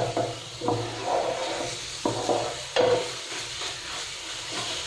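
Garlic and spice paste frying on low heat in oil in a nonstick pan, sizzling steadily as a spatula stirs and scrapes it around the pan. A few sharper spatula strokes stand out, the loudest near three seconds in.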